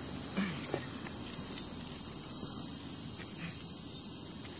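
Chorus of night insects, a steady high-pitched trill.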